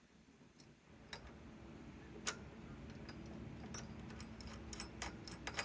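Faint scattered light clicks and taps from hand tools being handled, a few at first and coming closer together near the end, over a low steady hum that starts about a second in.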